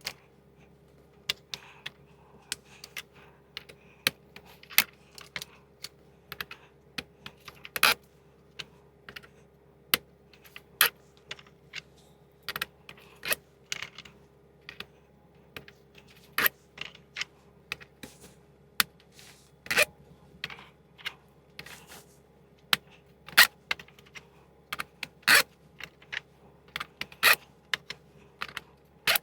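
Metric sockets clinking against each other and clicking onto the twist-lock clips of an Ernst Socket Boss rail: sharp, irregular metallic clicks, about one or two a second, over a faint steady hum.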